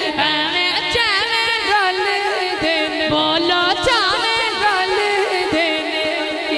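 A naat sung through a microphone and PA system, the voice gliding in long ornamented runs over a steady held low note.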